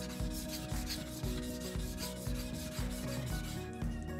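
Deba knife blade being stroked back and forth on a wet 1000-grit Chosera whetstone, a rhythmic gritty rasping at about two strokes a second. This is the 1000-grit sharpening stage of a deba resharpening.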